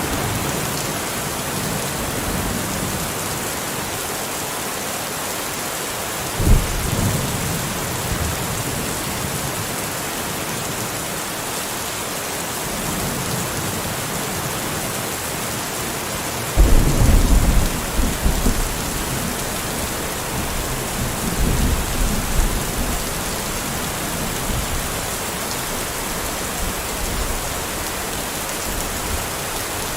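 Steady heavy rain with thunder: a sudden clap of thunder about six seconds in, and a louder rumble of thunder starting about sixteen seconds in that rolls on for several seconds.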